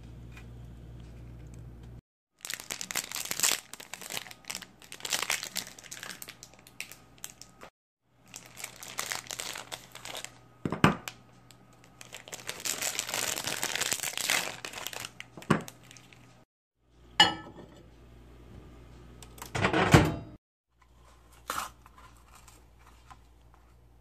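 A chocolate bar's wrapper crinkling and tearing in several long bursts, with a few sharp knocks among them. A low steady hum fills the quieter stretches.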